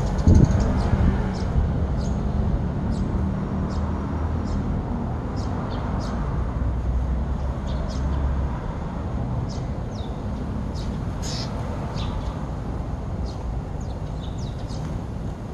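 Flock of Eurasian tree sparrows chirping, with many short, high chirps scattered throughout, over a steady low background rumble. A loud low thump comes about half a second in.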